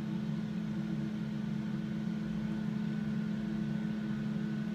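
Steady low mechanical hum with a fainter high steady whine above it, like a fan or household appliance running.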